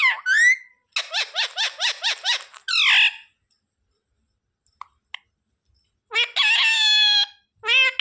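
Indian ringneck parakeet calling: a quick run of about eight short chattering notes, a louder call right after, then after a pause a long call near the end.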